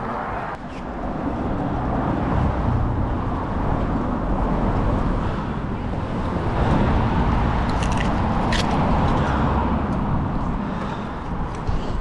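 Road traffic passing, a rumbling noise that swells and fades over several seconds, with a couple of faint clicks about eight seconds in.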